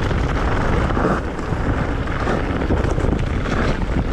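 Wind buffeting the microphone over the rumble and rattle of an e-mountain bike's tyres rolling over a loose, stony dirt trail.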